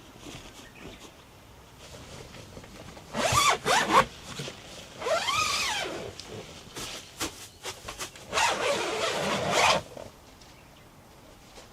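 A zipper pulled in three long runs, the middle one rising and then falling in pitch as the pull speeds up and slows.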